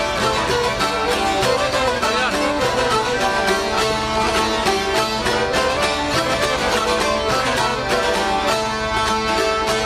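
Albanian folk ensemble playing live: a plucked çifteli with violin and accordion over a steady frame-drum beat.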